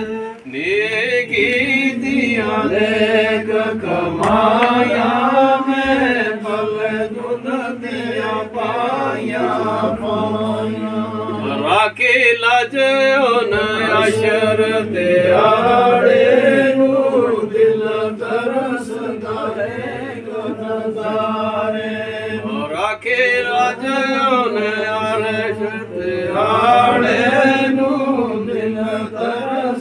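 A group of men chanting zikr together in Sufi devotional recitation, a melody rising and falling over a steady held note underneath.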